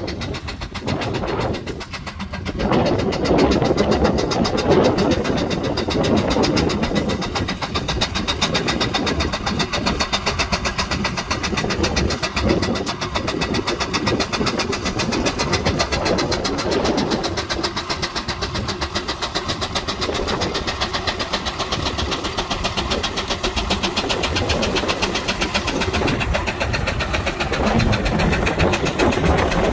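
Antique tractor engine running steadily, a rapid even firing beat that gets louder about two and a half seconds in.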